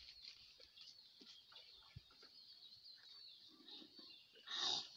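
Faint bird chirping in the background, with a few light clicks and one short, louder sound near the end.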